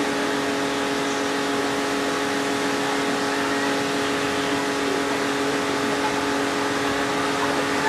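Miniature narrow-gauge steam locomotive, an Exmoor-type 0-4-2 tank engine, running slowly into the station: a steady hiss of steam over a constant mechanical hum.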